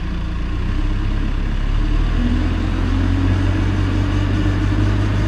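Backhoe engine throttled up: its steady running grows louder about half a second in, then holds at higher revs.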